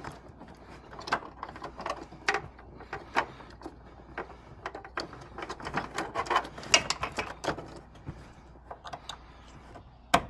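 Irregular clicks and taps of plastic parts being handled as a taillight wiring harness connector is plugged in, with a sharper click near the end.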